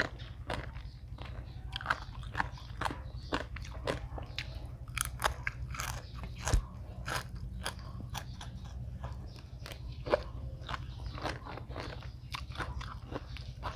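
A person chewing and biting food close to the microphone, with many short irregular crunches, over a steady low hum.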